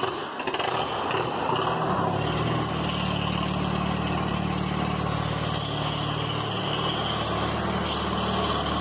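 An engine running steadily, a low even drone that settles in about two seconds in.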